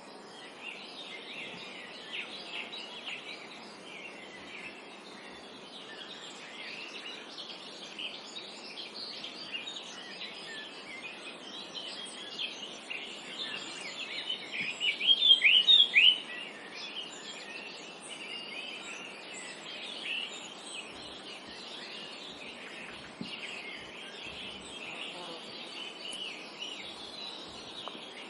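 Many small birds chirping and singing over a steady background hiss of forest ambience. About halfway through, one bird sings louder, a quick run of high chirps lasting a second or two.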